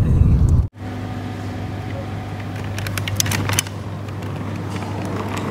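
Low road rumble inside a moving car's cabin that cuts off abruptly under a second in, giving way to the steady low hum of an airport terminal. A quick run of clicks and rattles comes about three seconds in.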